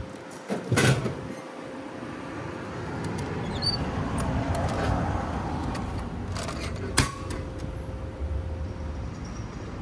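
Drinks vending machine dispensing: a button pressed and a plastic bottle dropping into the tray with a loud knock about a second in, then the tray flap opened and, about seven seconds in, a sharp click as it shuts. Street traffic runs underneath.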